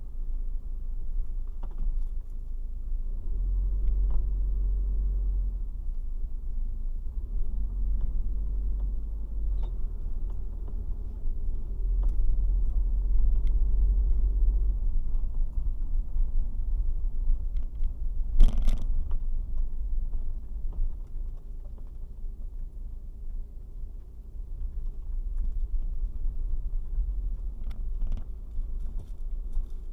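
Car engine and road rumble heard from inside the cabin through a dashcam's built-in microphone, with a steady engine hum clearest in the first half. A single sharp thump about 18 seconds in is the loudest sound.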